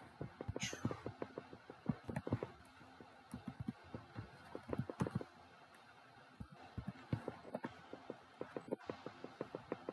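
Computer keyboard keystrokes, tapped in irregular clusters of a few quick clicks at a time.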